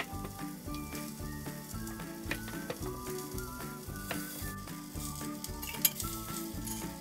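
Fish sizzling as it fries in a pan without oil, with scattered light clicks of a utensil and one sharp clink about six seconds in. Background music with a melody plays throughout.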